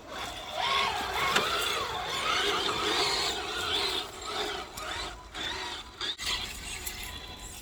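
RC scale crawler's electric motor and gearbox whining as it crawls over rough ground, the pitch rising and falling with the throttle.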